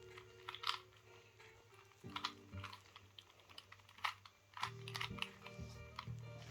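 Rubik's cube being turned quickly, a run of irregular plastic clicks and clacks as its layers snap round. Sustained low musical notes sound underneath and change a few times.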